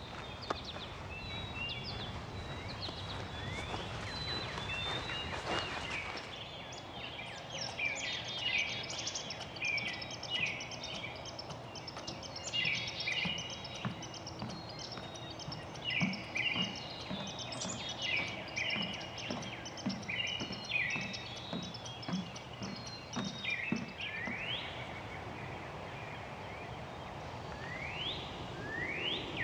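Several songbirds singing and calling over steady outdoor background noise, with quick repeated chirps and trills and, near the end, two calls that sweep upward.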